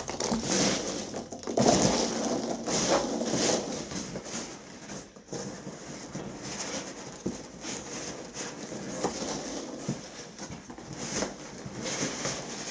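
Packing material being handled in a cardboard box: irregular rustling and scraping of polystyrene foam and cardboard, with a few soft knocks, loudest in the first couple of seconds.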